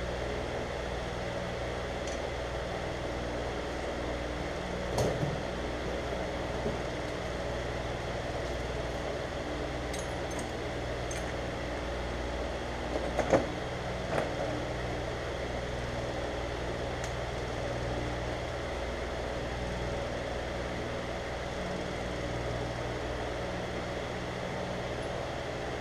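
Steady mechanical hum of a running machine, with a few light knocks about five seconds in and twice near the middle.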